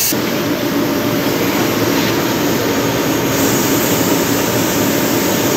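A loud, steady whooshing machine noise.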